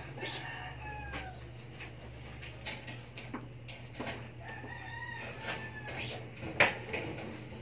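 Young kitten mewing twice: thin calls about a second long, the first falling in pitch just after the start, the second about five seconds in. Several sharp clicks come in between, the loudest near the end, over a steady low hum.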